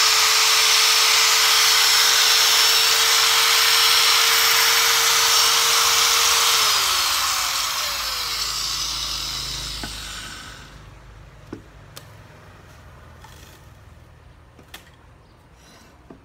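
Makita 100 V, 570 W angle grinder with a 100 mm disc running free at full speed with a steady high whine. It is switched off about six and a half seconds in and winds down, the whine falling over a few seconds, followed by a few light clicks.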